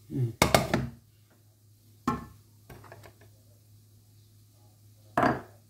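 Non-stick wok set back down on a glass hob with a clatter, then a wooden spatula knocking against the wok twice, about two seconds in and near the end.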